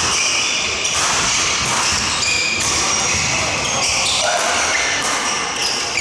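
Badminton doubles rally: rackets striking the shuttlecock about once a second, with short high squeaks of court shoes on the wooden floor, echoing in a large hall with voices in the background.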